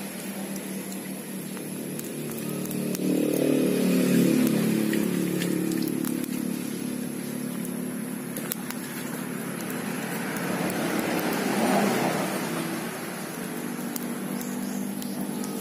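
An engine running steadily, with two swells in loudness: one about three to four seconds in and a broader, noisier one near the twelve-second mark.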